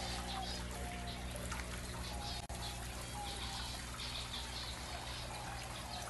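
Many small aviary birds chirping in quick high bursts, with a few short whistled notes, over trickling water and a steady low hum.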